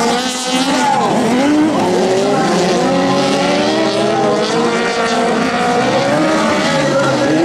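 Several autocross race cars' engines running hard on a dirt track, their overlapping engine notes rising and falling continuously as the cars accelerate and lift off.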